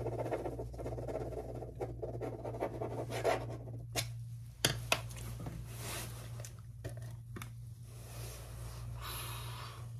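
Close-up scratching and rustling against the microphone, ASMR-style, with a few sharp clicks about four to five seconds in.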